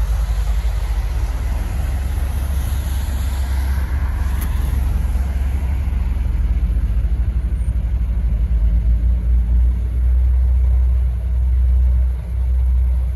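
Heavy snow-removal machine's engine running as it comes up the road, mixed with passing road traffic. The deep rumble is steady at first, then swells and pulses unevenly in the last few seconds.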